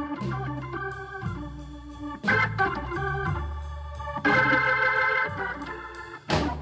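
Background music on an organ-like keyboard: sustained chords that change every second or two, with a few sharper, louder chord entries.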